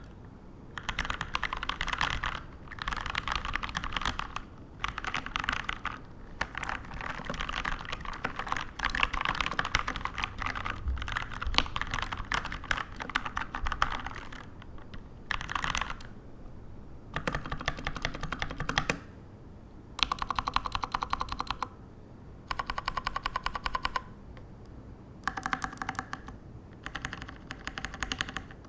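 Keychron K2 mechanical keyboard being typed on quickly, in bursts of one to three seconds with short pauses between; a few bursts are even, rapid runs of keystrokes.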